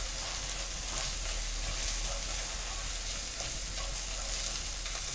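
Onion, ginger, garlic and spice paste sizzling steadily in a frying pan as it is stirred.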